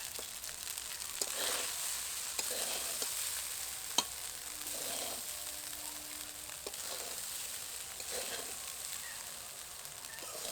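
Rice and vegetables sizzling in oil in a kadai while a spatula gently stirs and turns them, with a soft scraping stroke every second or two. A single sharp tap about four seconds in.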